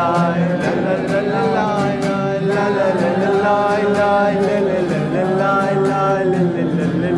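A solo voice singing long, drawn-out melismatic lines of an Arabic song over a steady guitar accompaniment.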